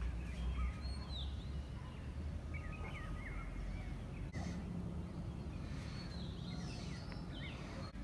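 Birds chirping and calling in short, scattered notes and quick pitch glides over a steady low rumble of outdoor background noise.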